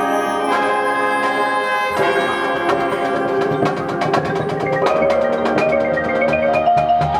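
Marching band music: held chords, joined from about two and a half seconds in by a quick run of mallet-percussion notes.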